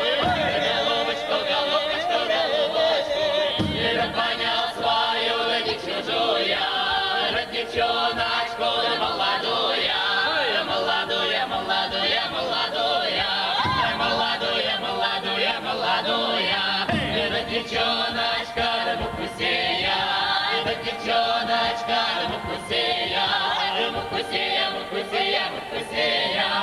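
Russian folk choir of men's and women's voices singing a folk song together, without a break.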